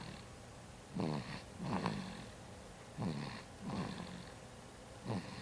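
Baby snoring in sleep: rough, rattly snores in pairs, the pairs about two seconds apart.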